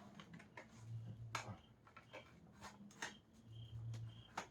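Faint, scattered plastic clicks and knocks of vacuum cleaner parts being fitted and snapped into place by hand, a few sharper ones among them, with a faint low hum coming and going.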